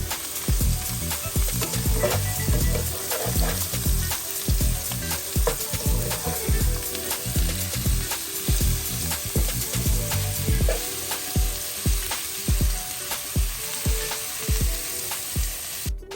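Oyster mushrooms sizzling and crackling in hot olive oil in a frying pan.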